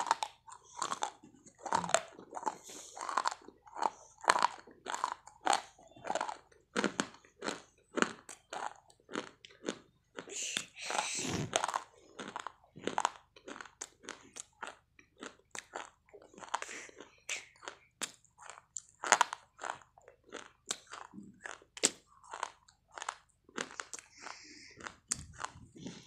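Close-miked biting and chewing of hard white chalk sticks: crisp, irregular crunches one after another, with a longer stretch of grinding crunch about ten seconds in.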